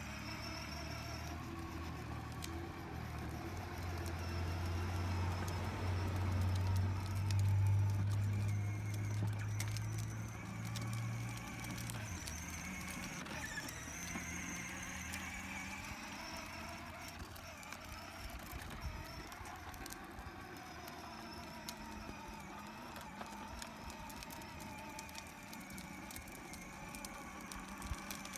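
Small battery-powered ride-on toy motorcycle with training wheels driving on a concrete driveway: an electric motor whine that rises and falls as it speeds up and slows, with the wheels rolling. Underneath is a steady low hum that stops about twelve seconds in.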